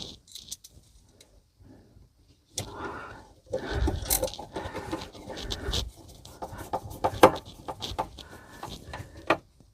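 Irregular clicks, scrapes and small metallic rattles of screws and hand tools being handled while screwing a sink unit down into a worktop. It is nearly quiet for about the first two and a half seconds.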